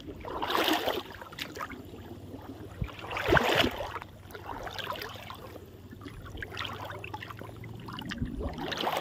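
Splashing and sloshing in shallow muddy water, with two louder splashes, one about half a second in and one about three and a half seconds in, and quieter dribbling between them, as a person wades and works a cast net. A faint steady low hum lies underneath.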